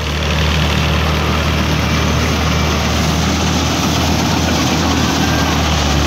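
Jasse 998 combine harvester running steadily while harvesting paddy: a low, even engine drone with a dense rushing noise from the working machinery over it.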